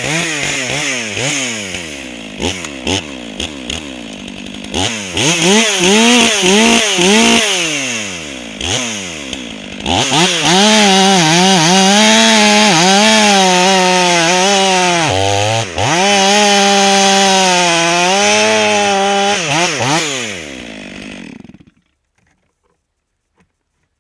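Stihl MS 500i fuel-injected two-stroke chainsaw, slightly modded, revved up and down in quick blips, then held near full throttle for about ten seconds, its pitch sagging and recovering as it works through wood. The engine shuts off a couple of seconds before the end.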